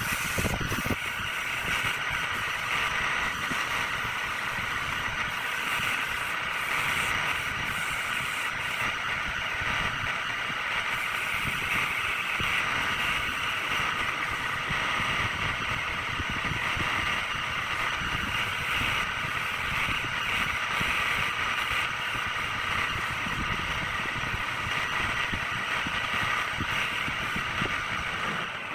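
Wood lathe running steadily, with a high whine and a rasping hiss.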